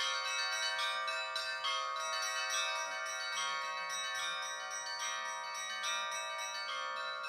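Russian Orthodox church bell ringing (zvon): a set of higher-pitched bells struck by one ringer in a quick, continuous pattern of several strokes a second, their tones overlapping and ringing on.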